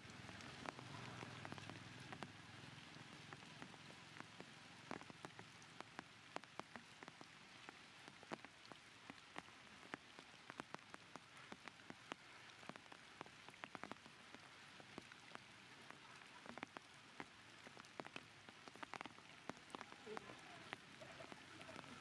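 Faint rain: a steady hiss with scattered drops pattering sharply on surfaces.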